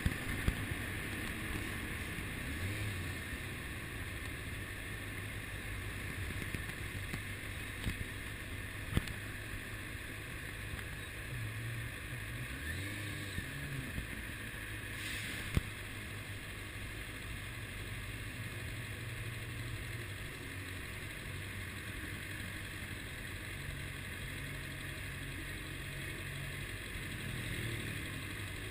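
Kawasaki ZX-6R's 600cc inline-four engine idling and ticking over at low revs in stop-and-go traffic, a steady low hum that shifts a little now and then. A few sharp clicks stand out, the clearest about nine and fifteen seconds in.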